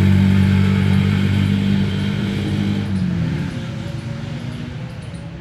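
A motor vehicle engine running steadily with a low hum, then dropping in pitch about three seconds in and fading away.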